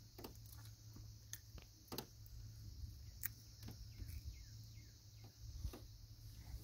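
Faint scattered clicks and light knocks of a hook and fishing line being worked out of a catfish's mouth by hand, over a steady high hiss and a low rumble.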